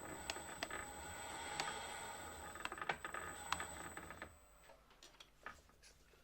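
A machine tool's electric motor runs with a steady hum and a high whine for about four seconds, then shuts off. Sharp clicks and taps sound throughout.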